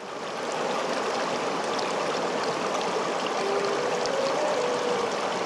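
Shallow stream rushing over rocks, fading in at the start. A few seconds in, a slow melody of held notes comes in over the water.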